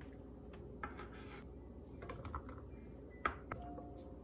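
Faint scattered taps and clicks of cut vegetables and a chef's knife against a ceramic plate as the pieces are arranged, with one sharper click about three seconds in, over a low steady hum.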